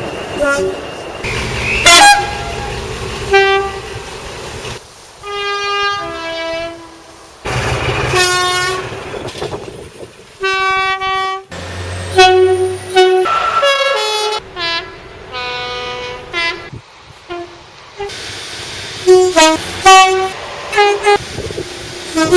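Locomotive two-tone horns, one after another: high and low notes sounded in turn, with long blasts and short toots. The horns change abruptly every few seconds, and a quick run of short toots comes near the end.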